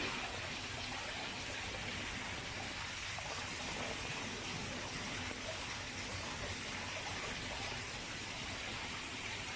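Water from a small waterfall splashing steadily into a koi pond, a continuous even rush of falling water.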